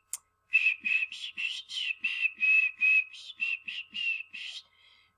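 A woman whistling a quick run of short, breathy notes on a single high pitch, about three a second, stopping shortly before the end; a whistler who by her own account doesn't whistle very well.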